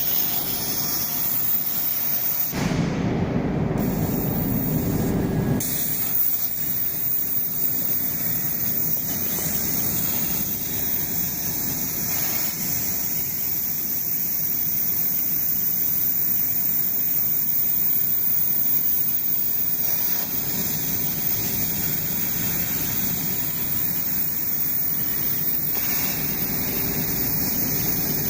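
CNC plasma torch cutting 20 mm plate: a loud, steady hiss of the arc and gas jet, with a heavier low rumble for a couple of seconds about three seconds in.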